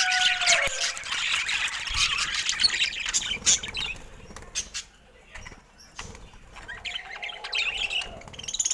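Budgerigars chirping and chattering, busy for the first few seconds, thinning out, then picking up again near the end.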